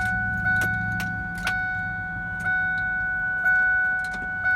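Ford F-150 dashboard warning chime sounding steadily, pulsing about once a second, with a few sharp clicks as the key is turned and the engine does not crank: the no-start the owner hopes is only the starter. A low engine hum fades out in the first couple of seconds.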